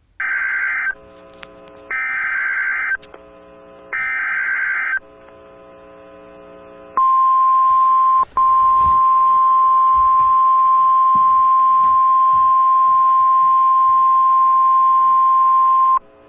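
Emergency Alert System tones for a tornado warning: three one-second bursts of buzzing SAME digital header data, about two seconds apart, with a faint hum between them. Then a single steady high attention tone, the NOAA Weather Radio 1050 Hz alert, held for about nine seconds with a brief dropout near its start.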